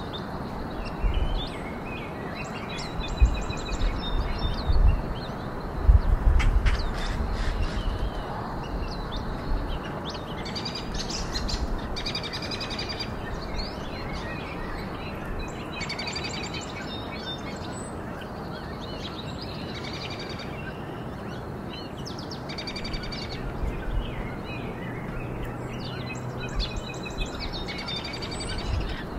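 Small songbirds chirping and twittering in short runs of quick, high calls every few seconds, over a steady rushing background noise. A few low thumps in the first seven seconds are the loudest sounds.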